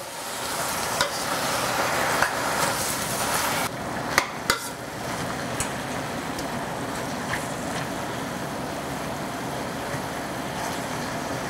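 Gai lan (Chinese broccoli) and mushrooms sizzling in a stainless steel wok as a metal spatula stirs and tosses them, with a few sharp clinks of the spatula against the pan. The sizzle is louder for the first few seconds, then settles to a steady hiss as the greens fry down until wilted.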